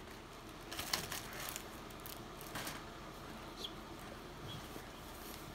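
Faint soft rustling and wet clicks as a whelping Rottweiler shifts on blankets, with two brief faint high squeaks around the middle.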